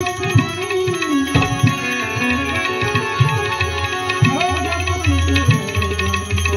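Live Indian devotional folk music: a man singing over a harmonium, with tabla strokes, a keyed Indian banjo (bulbul tarang) playing the melody and small hand cymbals keeping time.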